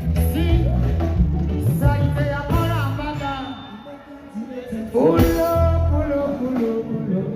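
Music with a singer over a heavy bass beat. The bass drops out and the music thins briefly around four seconds in, then the full band comes back at about five seconds.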